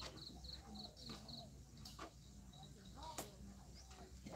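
Faint outdoor ambience: a quick run of short high chirps near the start, a few faint rising-and-falling animal calls and light clicks, with faint distant voices.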